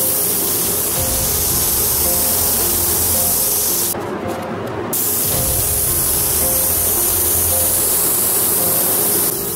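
Compressed-air paint spray gun hissing steadily as it sprays paint onto a metal truck-bed panel, stopping for about a second around four seconds in. Background music plays underneath.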